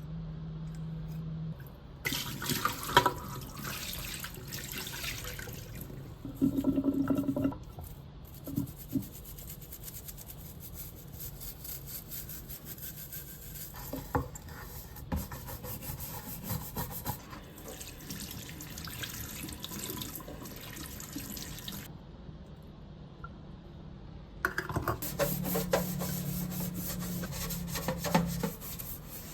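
Water running from a kitchen tap into the sink while the sink is being cleaned. The flow comes and goes, with a few separate knocks along the way.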